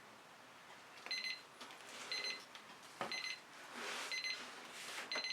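Electronic alarm beeping in short bursts of rapid beeps, one burst about every second, starting about a second in, as a timer signals that time is up.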